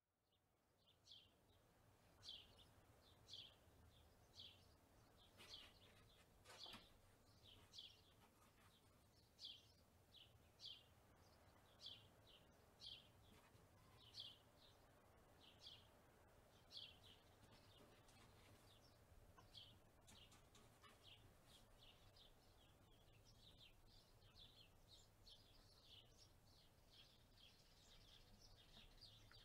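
Faint outdoor ambience: a bird giving short high chirps about once a second, turning into denser, softer chirping near the end, over a low steady rumble of wind.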